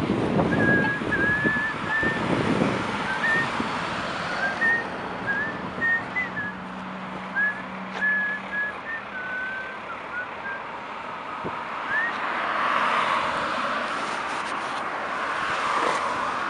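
A person whistling a wandering tune in short notes for about twelve seconds over steady city traffic noise. Near the end a vehicle passing close by swells up and covers it.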